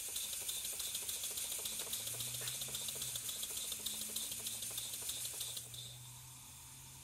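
PM Research model steam engine running on live steam: quick, even ticking of its exhaust beats over a steady hiss of steam, fading down about six seconds in.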